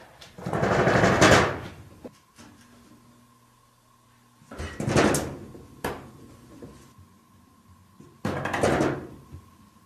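A wooden sliding shoji door rattling in its frame three times, each rattle about a second long and a few seconds apart, as a cat shakes it from the hallway side.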